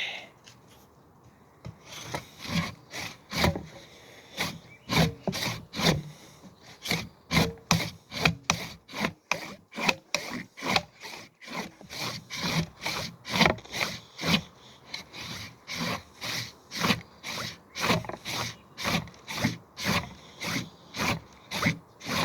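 Handsaw cutting through wood in steady back-and-forth strokes, about two strokes a second, starting about two seconds in.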